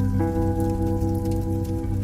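Background music: slow ambient chords held steadily, shifting to a new chord just after the start.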